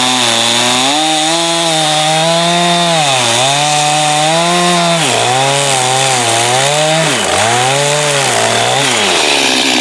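Two-stroke chainsaw cutting through a pine log, the engine pitch sagging and recovering again and again as the chain bites under load. Near the end it settles to a steadier, lower running note.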